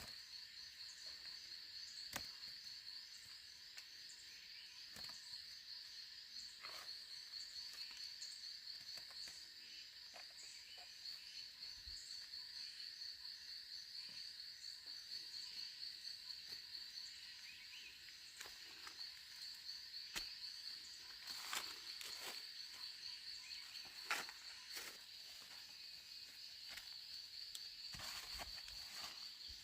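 Insects chirring steadily in a high, finely pulsing chorus, with scattered light clicks and snaps from time to time.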